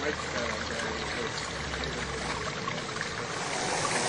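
Running water trickling and splashing steadily, like a small stream or waterfall.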